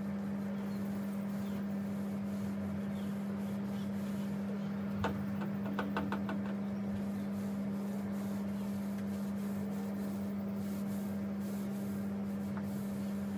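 A steady low hum. About five seconds in, a knock and then a quick run of clicks as a paint roller is worked in its plastic tray to load it with hardwax oil.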